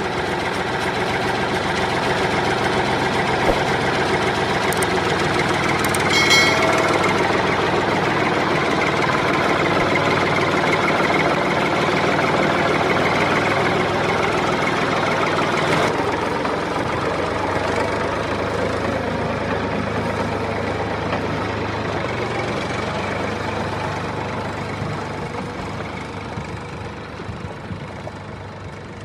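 Diesel tractor engine running steadily with a knocking clatter, fading out gradually over the last several seconds. A short higher tone sounds about six seconds in.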